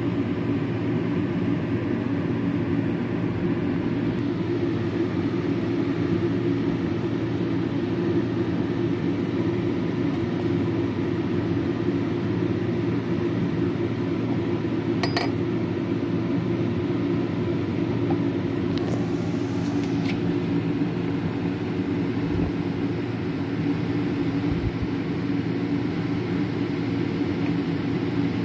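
Steady low drone of a metal planer running, with one sharp click about 15 seconds in.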